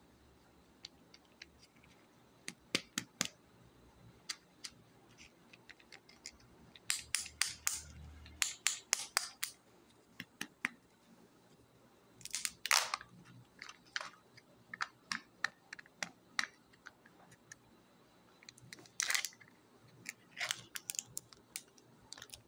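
A Kinder Joy egg being unwrapped by hand: a run of clicks and crackles from the thin plastic wrapper and shell, with short bursts of crinkling as the wrapper is torn open and the plastic halves are pulled apart.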